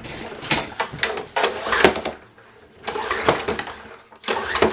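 Lawnmower recoil starter being yanked again and again, about four rasping pulls of the cord with the small engine turning over but not catching.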